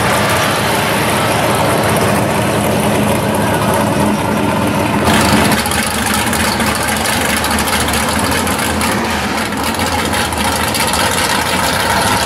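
Drag cars' engines idling: one engine holds a steady idle, then about five seconds in the sound changes abruptly to another car's engine idling with an uneven pulsing beat.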